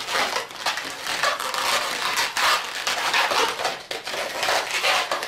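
Inflated latex modelling balloons rubbing against each other and against the hands as a long balloon is pushed through a cluster of twisted segments to lock it tight: a run of irregular scraping strokes.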